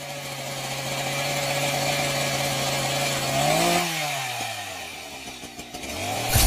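Chainsaw engine sound effect running steadily, then revving up a little past halfway and falling away. It picks up again near the end, with a sharp thump.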